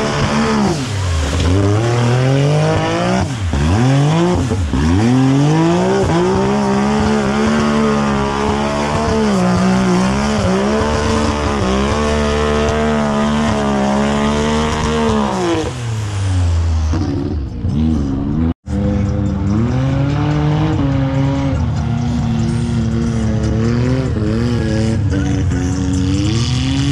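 A mud-racing vehicle's engine revving hard, its pitch swooping up and down again and again as the throttle is worked. It falls away about sixteen seconds in, cuts out for a split second, then runs on with smaller rises and falls.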